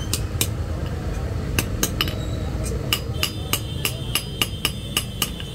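Hand hammer striking a small iron piece on a stone anvil block: a few scattered blows, then quick light taps about five a second from just past halfway, with a metallic ring.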